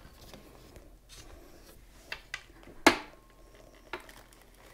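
Hard plastic sewing-machine extension table being handled and set into place around the machine: a few light clicks, one sharper knock just before three seconds in and a smaller one near the end, with soft rubbing between.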